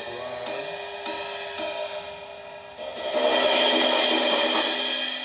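20-inch ride cymbal from a budget Iznik cymbal pack, struck about four times with ringing shimmer after each hit. About three seconds in it breaks into a louder, sustained wash of cymbal sound.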